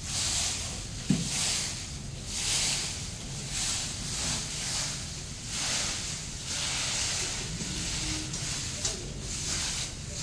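Stick brooms sweeping a dry dirt ground, a hissing swish about once a second, with one sharp knock about a second in.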